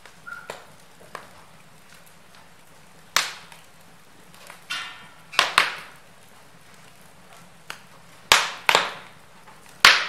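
Wood logs burning in an open fireplace: a low steady hiss broken by sharp crackles and pops every second or two, several coming in quick pairs, the loudest near the end.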